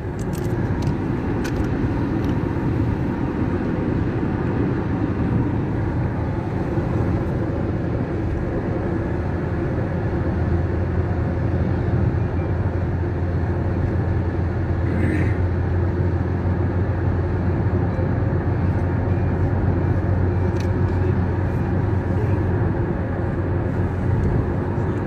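Car driving on a wet road, heard from inside the cabin: steady engine and tyre noise, with a low drone that grows stronger about ten seconds in and a few light clicks.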